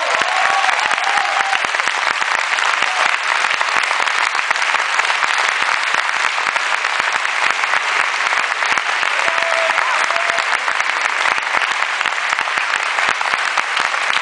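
Audience applauding steadily, a dense sustained patter of many hands clapping.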